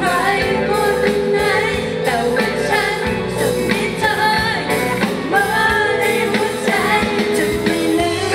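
Live band performance: a woman singing a Thai pop song in full voice over drums, bass and guitar through a PA system.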